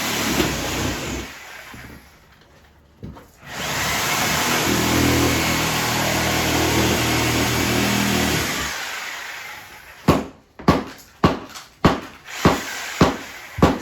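Reciprocating saw cutting through half-inch drywall, running in two stretches with a short stop between and winding down near nine seconds. From about ten seconds in comes a regular series of sharp knocks, about two a second.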